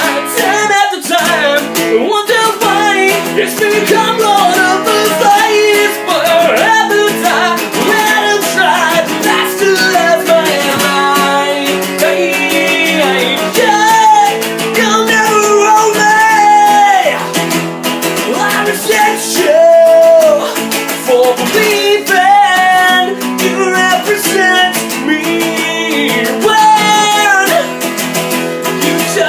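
Music: a guitar-driven song, with guitar playing under a held, wavering melody line.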